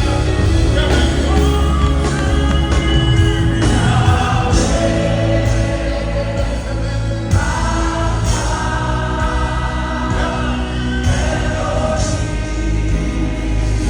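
Live gospel worship music: a choir singing sustained notes over a loud, steady bass band accompaniment.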